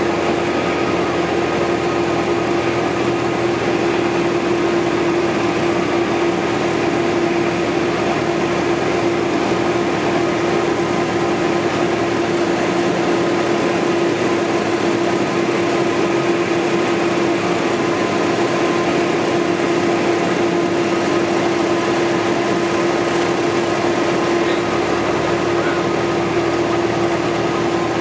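Single-engine light aircraft's piston engine and propeller droning steadily on final approach, heard from inside the cockpit, with a constant hum.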